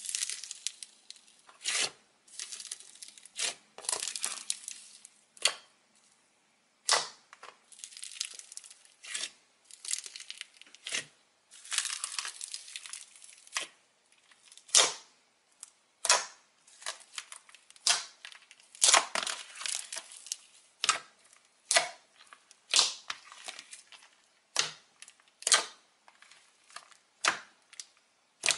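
Fingers pressing, poking and folding white slime studded with small beads. It makes an irregular run of crackles and sticky crunches, one to three a second.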